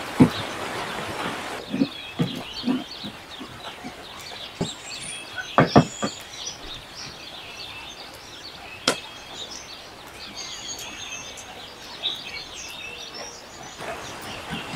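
Food sizzling in a pan over a wood fire for the first second or so, then birds chirping in the background with a few sharp knocks of a spatula and utensils against the pan.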